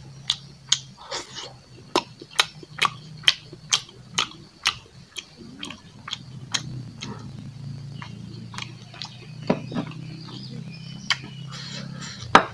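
Close-up wet chewing and lip-smacking while eating braised pork curry with rice by hand: sharp smacking clicks about twice a second for the first few seconds, then sparser, with the loudest smack near the end. A steady low hum runs underneath.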